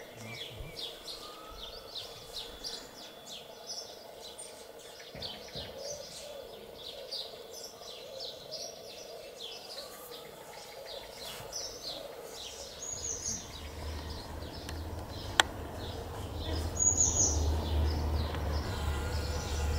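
Small songbirds chirping and singing repeatedly over steady outdoor background noise. About two-thirds of the way through a low rumble comes in and grows louder, and a single sharp click sounds shortly after.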